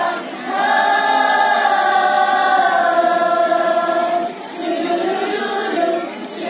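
Middle-school choir singing together in many voices, holding one long chord for about three and a half seconds, then dropping briefly and going on more softly.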